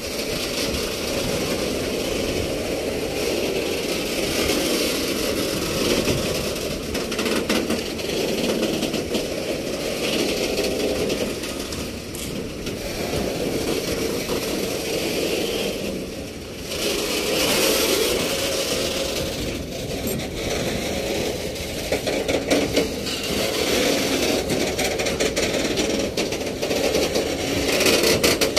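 Freight train of high-sided open wagons passing close by: a steady rumble and rattle of wheels on the rails, with many sharp clacks that come thicker and louder near the end.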